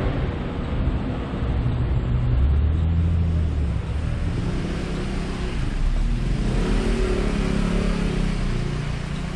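Motor vehicle engine running close by in street traffic, its pitch shifting as it pulls past. The sound swells twice.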